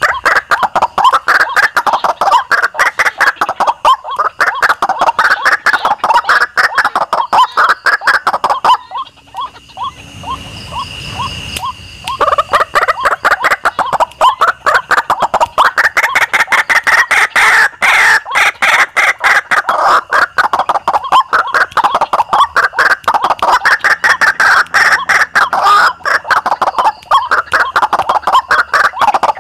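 White-breasted waterhen calls: fast, repeated notes in long phrases that swell and fade every few seconds. The calling breaks off for about three seconds a third of the way through, then starts again.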